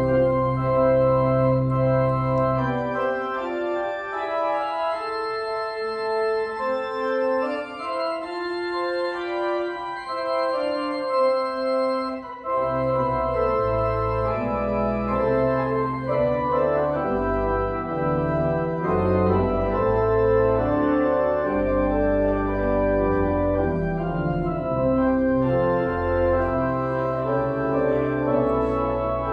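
Church organ playing a postlude in sustained chords; the deep bass notes drop out a few seconds in and come back about halfway through.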